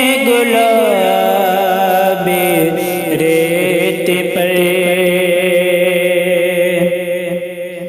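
Male voice singing a long, wavering melismatic line of an Urdu manqabat, the pitch sliding slowly down; it fades away near the end.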